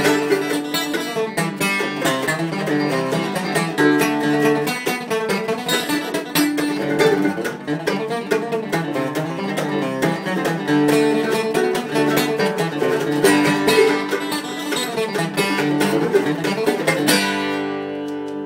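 Acoustic guitar and mandolin playing a quick, picked country-style instrumental together. Near the end the playing stops on a final chord that is left ringing.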